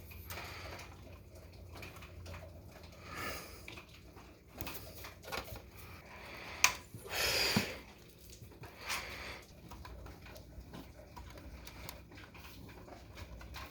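Quiet, intermittent handling noises of tools and a pipe fitting being worked by hand: small metal clicks and rustles, with one sharper click about two-thirds of the way through followed by a brief rustle.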